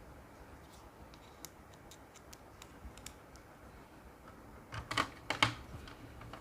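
Light scattered clicks and taps of a screwdriver and small screws on a laptop's plastic case during reassembly, with a few louder sharp clicks about five seconds in.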